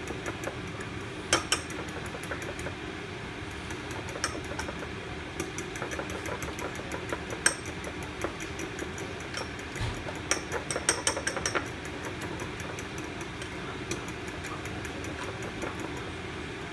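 Chicken sotanghon noodle soup boiling under a glass lid, a steady bubbling. Several sharp clicks and clinks sound over it, a few single ones and a quick cluster a little past the middle.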